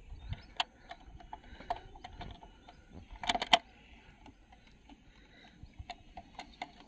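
Light metal clicks of a hex (Allen) key working a motorcycle seat-mounting screw and washer as it is turned by hand, with a quick cluster of louder clicks about three and a half seconds in.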